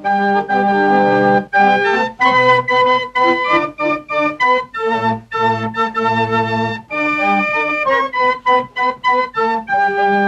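Organ music: a keyboard tune of held notes and chords, with short breaks between phrases.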